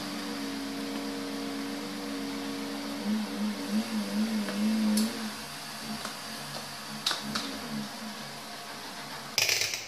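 Soft background music with sustained tones that shift in pitch, over a few light clicks from handling a power-supply circuit board and its wires, with a brief rustle near the end.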